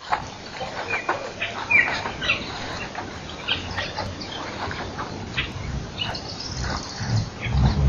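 Wild birds calling: scattered short chirps and whistles from several birds. A low rumble builds up near the end.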